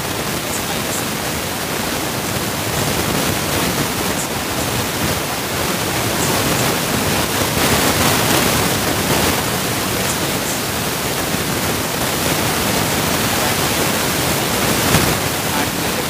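A steady, loud hiss with no pitch to it, even throughout.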